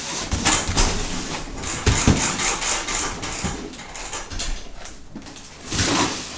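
A run of short knocks, clicks and rustling from objects being handled and set down, thickest in the first few seconds and thinning out about five seconds in.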